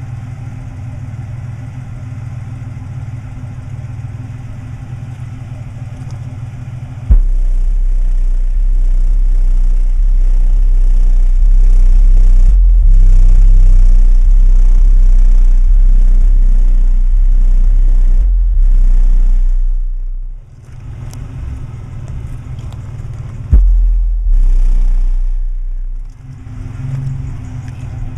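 Bass-heavy music played very loud through two Fi Car Audio BL 15-inch subwoofers on about 4,000 watts RMS in a Ford Ranger pickup. About seven seconds in, a very deep sub-bass note comes in suddenly and holds for some thirteen seconds. It drops away, then comes back twice more for a few seconds each, near the end.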